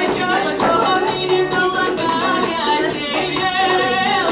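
A girl singing a song with vibrato over instrumental backing music.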